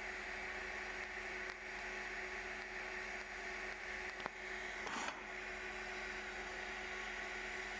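Steady hiss with a low electrical hum under it, broken by a sharp click about four seconds in and a brief rustle just after.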